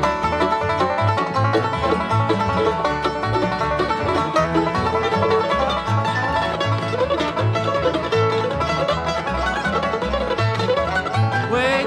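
Bluegrass band playing an instrumental passage: banjo and guitar picking over steady, evenly repeating bass notes, with no singing.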